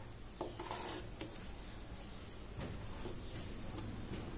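Sheet of newspaper being handled and smoothed on a wooden table, with faint paper rustling and a few light taps as a steel ruler is laid across it, over a steady low hum.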